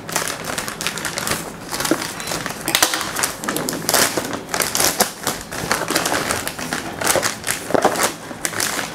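Handling noise from unpacking: a plastic courier mailer crinkling and a cardboard box being gripped and turned over, a dense run of small rustles and taps.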